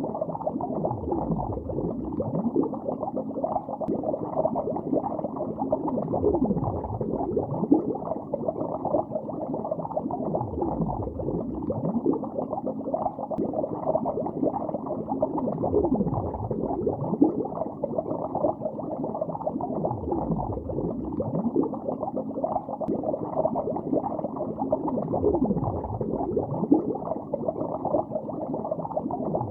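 Continuous underwater bubbling, heard from below the surface: a dense stream of small bubble blips, dull with little top end, with a low swell coming round about every four to five seconds.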